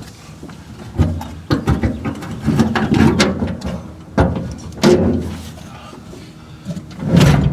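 Irregular knocks, clicks and rattles of metal hardware and parts being handled and shifted about inside an old truck's cab.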